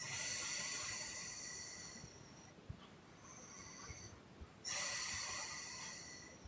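Sleeping woman's loud puffing exhales, two of them about four and a half seconds apart, each starting suddenly and tailing off over about two seconds, with quieter breathing in between.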